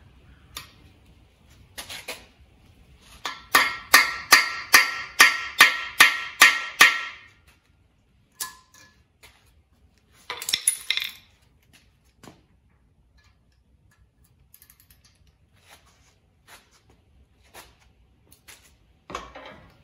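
Hammer striking steel against a cast-iron small-block Chevy 327 engine block, about ten quick ringing blows at roughly three a second, while working at a stuck oil galley plug. A brief clatter of metal tools follows a few seconds later.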